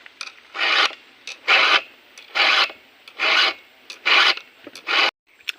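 Hand file rasping in six even strokes, about one a second, as when a chainsaw chain is sharpened with a file.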